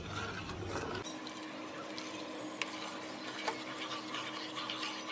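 Metal spoon beating a milk custard mixture in a bowl, a quick rattle of small clicks as it knocks and scrapes against the bowl's side.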